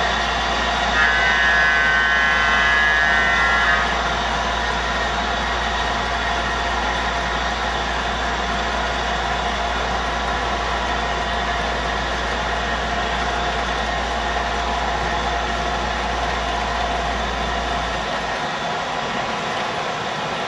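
O-gauge model freight train of woodsided reefer cars rolling steadily along three-rail track, hauled by six MTH Premier Pennsylvania Railroad electric locomotives. A high steady tone sounds for about three seconds starting about a second in. A low hum drops out near the end.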